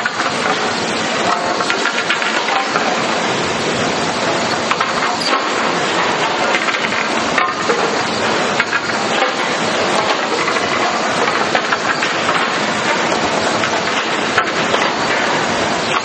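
Steady sawmill machinery din from a hardwood waterfall grading line, with a dense run of wooden clacks and knocks as boards are carried down the sloped deck by chain lugs and rollers.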